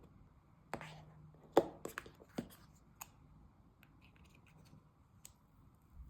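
Hands handling an iPhone box and its packaging: a few sharp clicks and taps, the loudest about a second and a half in, then faint scattered ticks.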